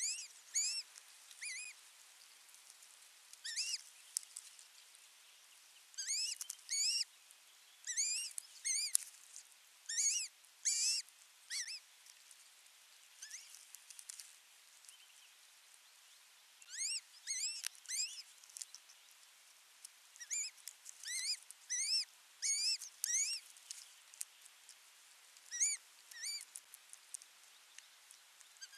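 Osprey calling: short, rising whistled chirps in quick clusters of two to four, repeated every second or so, with a quieter stretch in the middle.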